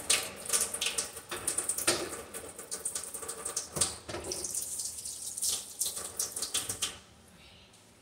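Tap water running into a kitchen sink with frequent clattering of items being handled and washed; it stops abruptly about seven seconds in.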